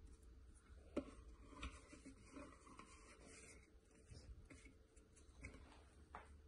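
Quiet handling sounds: crumbly pastry dough being scraped by hand out of a plastic food processor bowl onto plastic wrap, with faint rubbing and rustling and one sharp tap about a second in.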